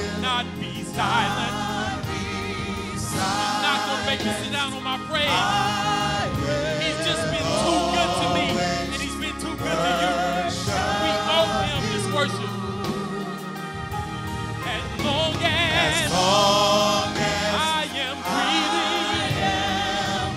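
A gospel worship team of several voices singing a worship song over a sustained accompaniment, with voices wavering on long held notes.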